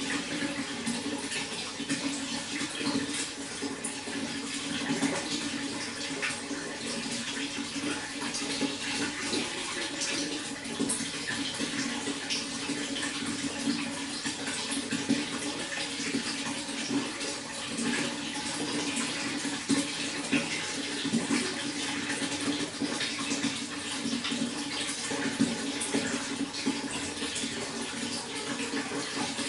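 Running water flowing steadily, with a continuous splashing rush and small irregular splashes throughout.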